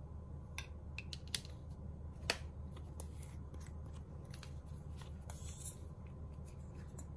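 Scattered small clicks and taps of a plastic glue bottle being handled and its pink cap twisted off, with papers shifting on the table; the sharpest tap comes a little over two seconds in. A steady low hum runs underneath.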